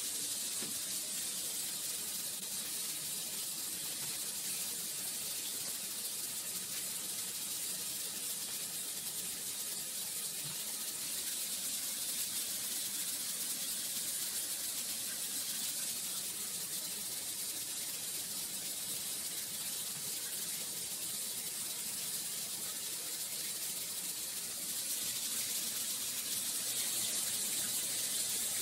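Steady, even hiss with no distinct events, strongest in the high treble; it gets slightly louder about 25 seconds in.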